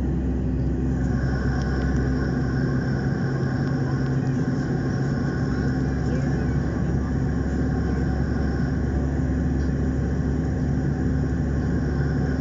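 Steady drone of a jet airliner's engines and rushing airflow, heard inside the cabin. A higher steady whine joins about a second in.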